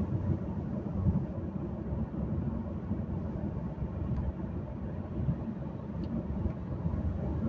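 Steady low rumble of a car driving along, heard from inside the cabin: engine and tyre noise on the road.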